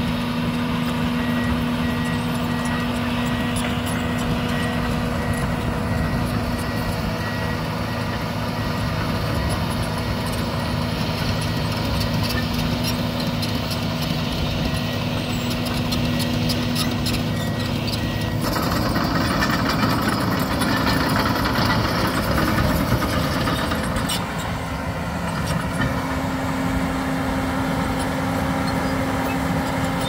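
John Deere 750K crawler dozer's diesel engine running steadily as the machine works over dirt, its note changing about two-thirds of the way through. A faint, high, evenly repeated beep sounds through the first half.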